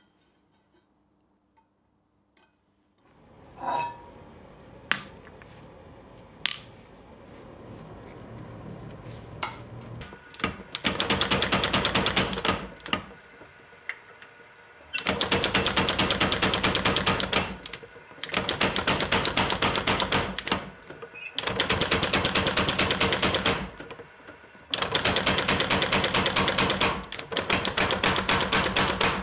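Power hammer forging a glowing steel bar. Its motor starts about three seconds in, a few single clanks of steel on steel follow, and then about six runs of rapid hammer blows, each lasting two seconds or so, with short pauses between.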